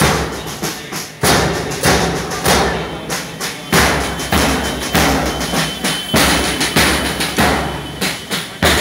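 Marching band drums playing a steady march beat, with the bass drum striking a little under twice a second.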